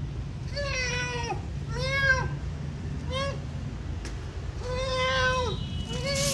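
Tabby cat meowing repeatedly: five meows in a row, each rising then falling in pitch, the fourth the longest.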